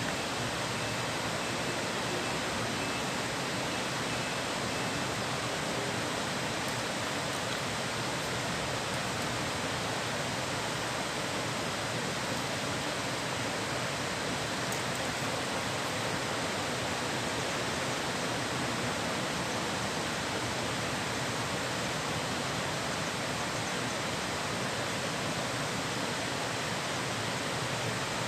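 Steady rush of flowing river water, an even hiss without change.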